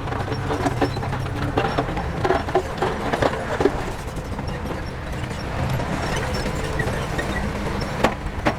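Heavy diesel construction machinery running steadily, with scattered clanks and knocks. The sharpest knocks come about three seconds in and twice near the end.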